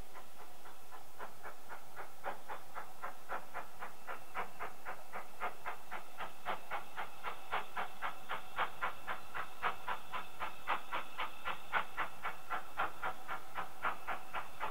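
Steam locomotive approaching under steam, its exhaust beats coming about four a second, faint at first and growing louder as it nears.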